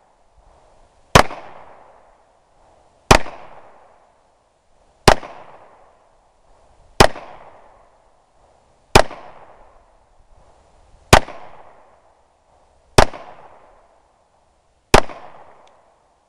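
Eight shots from a Smith & Wesson SW9VE 9mm semi-automatic pistol, fired slowly at an even pace about two seconds apart, each followed by a short echoing tail.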